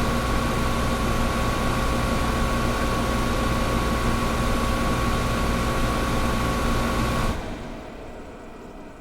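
Air conditioner running with a steady whooshing hum and a faint whine in it, which drops away sharply about seven seconds in, leaving a much quieter hiss.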